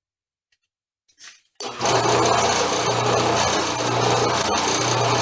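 Drill press motor switched on about a second and a half in and running steadily, with a low hum that swells and fades about once a second, used to drill out broken bolts in a mower deck spindle casting.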